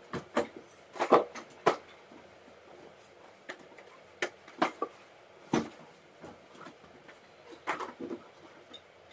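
A cardboard gift box being handled and opened. Irregular rustles, scrapes and light knocks of the box and its packaging come in short separate bursts.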